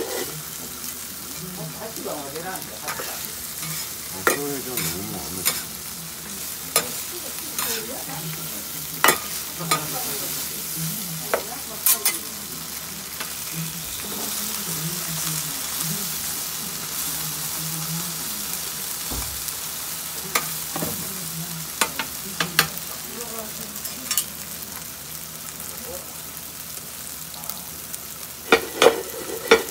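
Food sizzling steadily on a large hot iron teppan griddle, broken by sharp metal clacks and scrapes of spatulas and steel dome lids against the griddle, with a quick run of loud clacks near the end.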